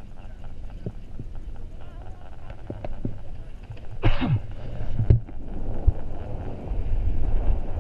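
Garaventa CTEC detachable quad chair's grip rolling over a tower's CTEC sheave train: a loud clatter with a falling whine about four seconds in and a couple of sharp clicks, then a low rumble from the haul rope and chair.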